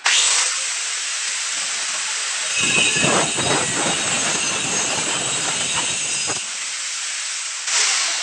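Electric angle grinder running at speed, coming on suddenly, its disc cutting down along the edge of a wall board. A rougher, deeper grinding joins in for a few seconds in the middle as the disc bites into the board.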